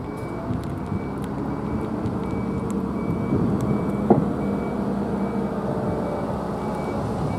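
A motor vehicle's engine running close by, with a high electronic beep repeating evenly about one and a half times a second, like a reversing alarm. A single sharp click comes about four seconds in, over faint crunching of cats eating dry food.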